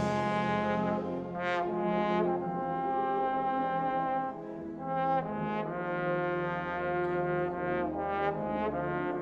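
Concert wind band playing in a bass trombone concerto: sustained brass chords over low held notes, with short notes entering on top about twice a second from about a second and a half in.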